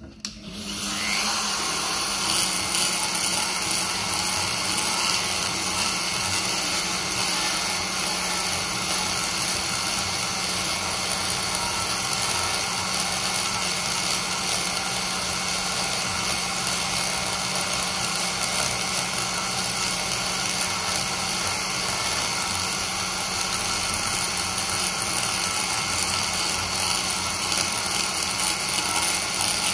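Die grinder fitted with a single-cut carbide burr starting up with a rising whine, then running steadily as it cuts into the aluminium port of a Toyota 2JZ-VVTi cylinder head. This is hand porting: roughing out the bowl to correct core shift.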